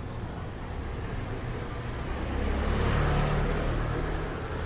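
A motor vehicle passing close by on the street, its engine and tyre noise growing louder to a peak about three seconds in, then fading.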